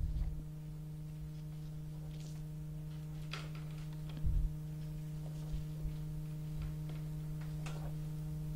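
Steady electrical hum from the lecture's microphone and sound system, with a few faint ticks and a short low thump about four seconds in.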